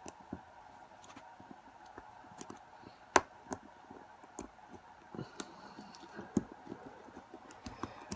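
Irregular small metal clicks and taps as a tool works at the retaining clip on a lock held in a vise, the clip proving hard to get off. The sharpest click comes about three seconds in, another near six seconds.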